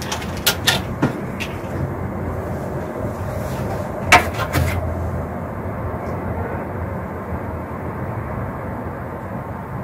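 A steady low outdoor rumble, such as distant traffic, with a few light clicks in the first second and a louder metallic clatter about four seconds in as a metal serving tray is set down on a stone balcony ledge.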